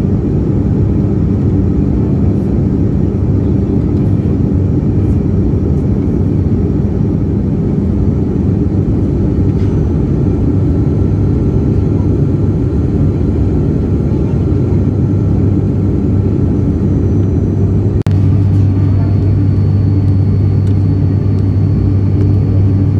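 Steady drone of an airliner in flight heard inside the passenger cabin: engine noise and rushing air with a low hum. A click about eighteen seconds in, after which the low hum grows stronger.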